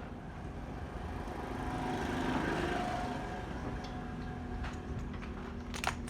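A motor runs with a steady low rumble that grows louder about two seconds in and fades again, then a sharp click near the end.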